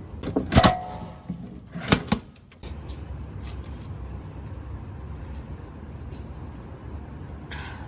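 Two loud knocks about a second and a half apart, the first with a brief ringing after it, followed by a steady low hum.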